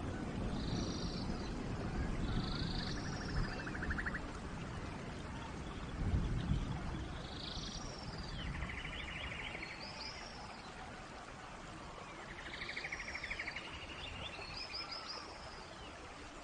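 Forest birds calling over a steady hiss of rain: short high notes and buzzy trills repeat every couple of seconds. Low rumbling fills the first half and is loudest about six seconds in.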